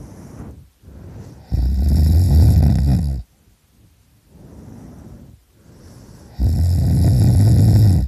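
A person snoring loudly: two long snores about five seconds apart, each lasting under two seconds, with quieter breaths between them.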